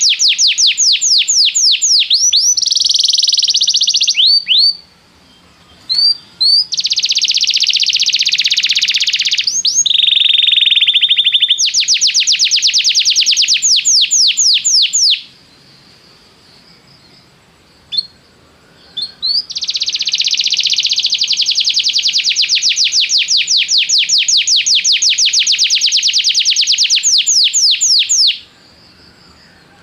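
Domestic canary singing: long rolling phrases of fast repeated notes, some clear and some harsher, broken by pauses of a second to a few seconds with a few short single chirps.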